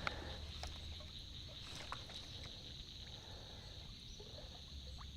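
Faint, steady high-pitched drone of insects, with a few faint ticks scattered through it.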